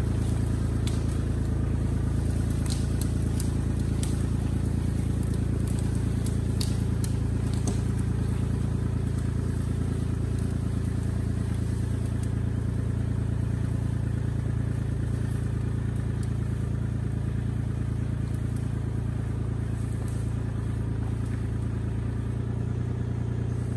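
Kubota L2501 compact tractor's three-cylinder diesel engine running steadily under load as it drags an uprooted tree out by a strap. Branches crack and snap through the first several seconds as the tree is pulled loose.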